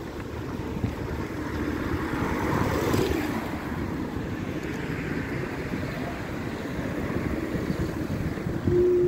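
Steady traffic and wind noise on a city street. It swells about two to three seconds in, as a vehicle goes past, and a short steady tone sounds near the end.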